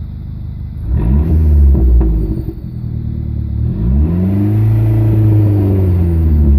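Car engine revved twice from idle: a short blip about a second in, then a longer rev held from about four seconds and dropping near the end. A faint high whistle comes in with the revs, which the owner suspects is a vacuum leak.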